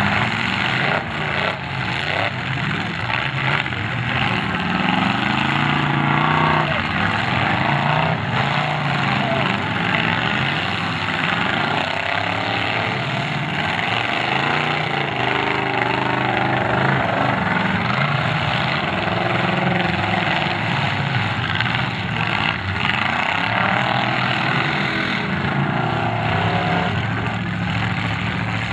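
Several demolition derby cars' engines revving hard and unevenly, rising and falling in pitch, as the wrecked cars shove against each other with wheels spinning in the dirt, with a few knocks of impacts.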